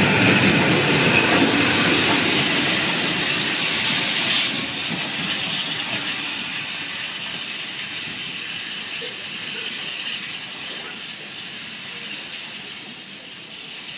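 Rear of a passenger train passing close: coaches rolling by with rail noise and a steady hiss. The steam locomotive 70000 'Britannia' brings up the rear. The sound drops sharply about four seconds in as the tail of the train goes by, then fades as the train draws away.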